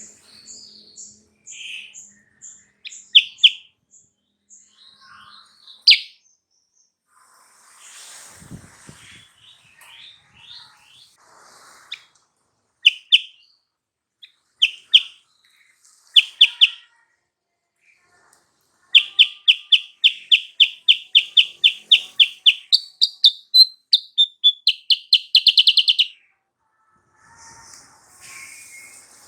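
Kutilang sutra (silver-eared mesia) singing. Scattered sharp chirps come first, then a long loud run of quickly repeated notes, about four or five a second, that turns higher near its end.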